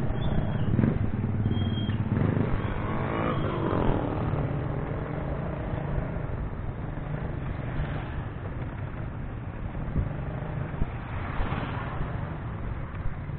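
Slow street traffic: a steady low engine drone, with motorcycles and motorized tricycles passing close by. One passing engine note rises and falls about three seconds in.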